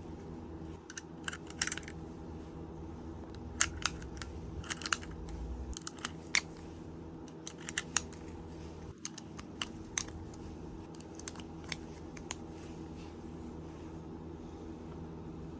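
Sharp mechanical clicks and clacks of a handgun being handled, scattered irregularly and sometimes in quick pairs, over a steady low hum.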